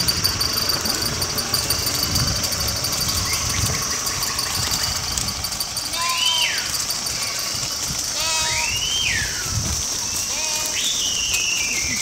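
A flock of sheep walking on a road, their feet scuffing and thudding, with several bleats from about halfway on. A steady high-pitched buzz runs underneath.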